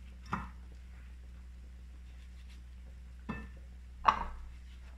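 A few short knocks and light clinks of a bowl and a metal baking tray being handled while zucchini slices are coated in a spice mix and laid out, the loudest about four seconds in, over a steady low hum.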